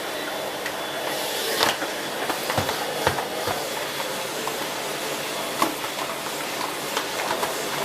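Siemens Z6 Power 2500 W bagged cylinder vacuum cleaner running steadily, a hiss of rushing air with a faint high whine, as its floorhead is pushed about, with scattered sharp clicks and knocks.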